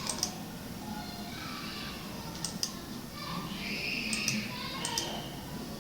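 Computer mouse clicks: a few sharp clicks, mostly in quick pairs, about a second apart, over faint room noise.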